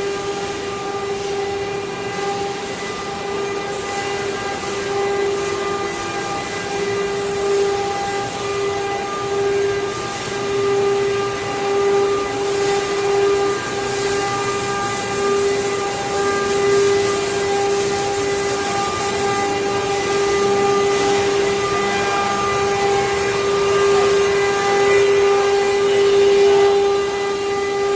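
CNC router spindle running at a steady speed with a constant high whine, with a rougher hiss of cutting swelling in the middle of the clip.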